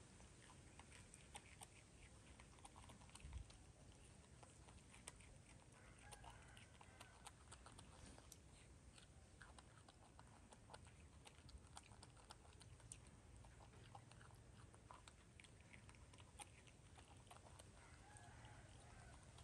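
Faint chewing and crunching as two young macaques eat pieces of fried carrot, a stream of small irregular clicks.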